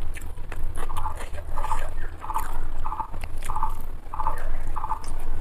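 Eating by hand from a plate: chewing and fingers working rice, with soft clicks, over a low steady hum. Behind it a short pulsed call at one pitch repeats evenly about eight times, roughly every two-thirds of a second, starting about a second in.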